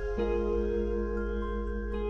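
Background music: soft ambient, new-age style, with long held notes that move to a new chord about a quarter second in.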